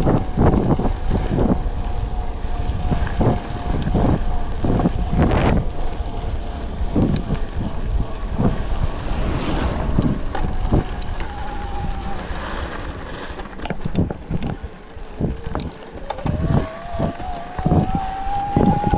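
Wind buffeting the microphone of a mountain bike ridden over rough trail, with repeated knocks and rattles from bumps. Underneath runs the thin whine of an electric mountain bike's motor, which rises in pitch over the last few seconds.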